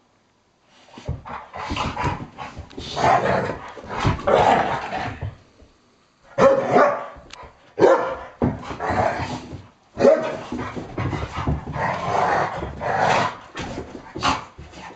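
Two dogs play-fighting, with rough vocal noise and several sharp barks, starting about a second in after a short silence.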